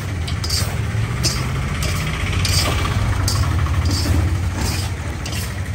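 Perforated steel skimmer scraping and stirring hot salt and fryums around a large metal kadai while they roast, in regular strokes about one and a half a second, over a steady low rumble.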